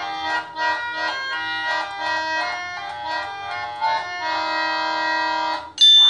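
Electronic organ-like keyboard tune of held notes changing every fraction of a second, with a bright chime near the end.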